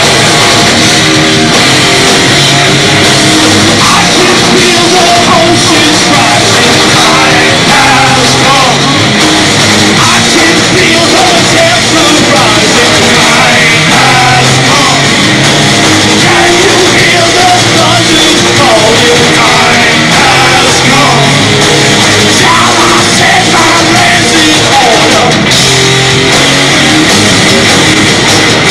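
A band playing heavy rock live, with electric guitars, drums and a singer's voice, loud and steady throughout.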